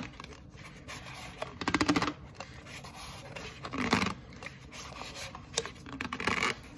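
Cardboard box of Cream corn starch being gripped and pressed, the cardboard rubbing and scratching, with a quick run of crunchy clicks about two seconds in as the packed powder is squeezed.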